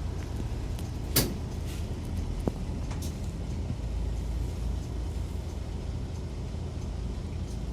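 Mitsubishi Fuso Aero Midi MK bus running, heard from inside the cabin: a steady low engine and road rumble, with a sharp knock about a second in and another about three seconds in.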